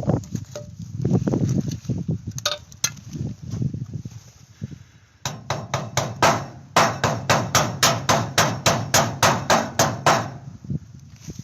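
Hammer blows in a steady run of about three strikes a second, some fifteen in all, starting about halfway through after a few seconds of lower handling noise and a couple of light clicks.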